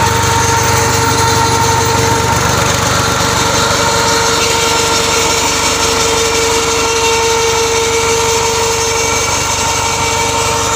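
Massey Ferguson 241 tractor's three-cylinder diesel engine running steadily, driving a PTO-mounted alternator that powers a submersible borewell pump, with a steady tone above the engine's hum.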